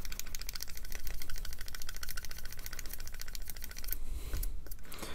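Fine polishing side of a sanding stick rubbed quickly back and forth over a plastic model part, a fast even run of strokes that stops about four seconds in. The strokes are polishing a sanded-out seam line back to a shine.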